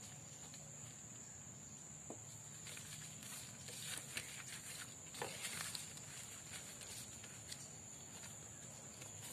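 Soft rustling and light taps of hands pressing and smoothing a wet leaf flat on a steel plate, mostly between about three and six seconds in.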